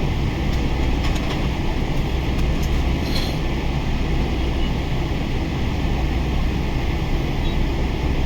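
Steady cabin noise inside a Boeing 777-300 climbing shortly after takeoff: a loud, even low rumble of jet engines and rushing air. A few faint clicks and rattles come in the first three seconds.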